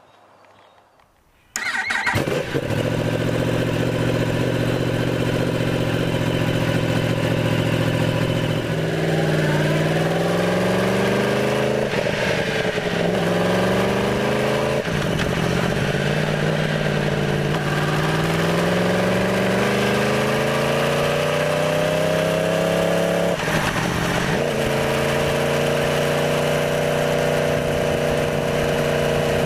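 2015 Yamaha R1's crossplane inline-four engine and exhaust under way, picked up by a small microphone mounted on the bike. It cuts in about a second and a half in, runs at a steady low pitch, then rises and drops several times as it accelerates and shifts up, and settles to a steady higher note near the end.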